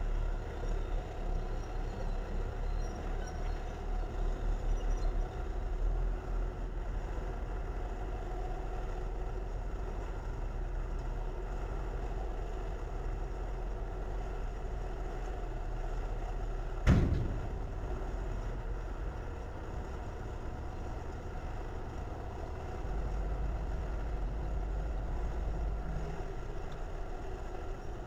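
Diesel engine of a crawler sideboom tractor running with a steady low rumble, and a single sharp bang about two-thirds of the way through. The low engine note grows louder for a few seconds near the end.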